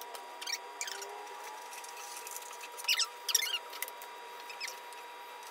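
Foam boards squeaking as they are handled and pressed together while being glued. There are a few short squeaks about half a second in, a cluster around three seconds in, and a last one near four seconds, over a faint steady high whine.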